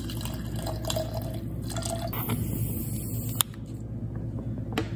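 Whiskey poured from a glass bottle into a pint glass over a stone ice cube, pouring and gurgling, then a sharp knock about three and a half seconds in and a lighter click near the end.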